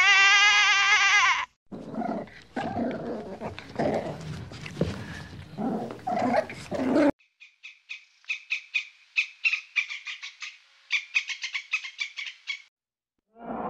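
A run of separate animal calls: a wavering, bleat-like sheep call lasting about a second and a half, then several seconds of rough, irregular grunting calls, then several seconds of rapid, high-pitched chattering.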